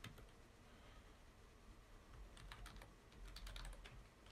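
Faint computer keyboard typing: a single keystroke at the start, then a quick run of keystrokes in the second half.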